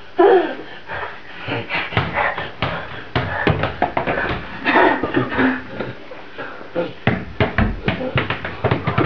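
A toddler's wordless vocalizing, with quick footsteps and short knocks on a stone-tiled floor.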